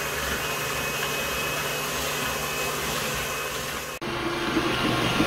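Electric hand mixer beating egg yolks with sugar and water for a sponge batter, with a KitchenAid stand mixer whipping egg whites alongside: a steady motor whir. About four seconds in the sound drops out for an instant and comes back with a slightly different hum.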